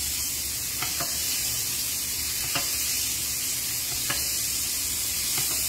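Diced steak and garlic sizzling in plant-based butter in a skillet, stirred with a wooden spatula that knocks and scrapes against the pan about five times.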